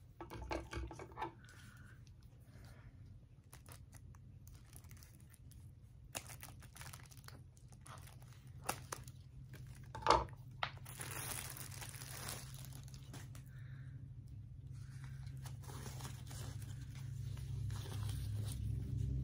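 Plastic wrapping crinkling and tearing as it is cut and pulled off a potted houseplant, in scattered rustles with one louder crackle about ten seconds in.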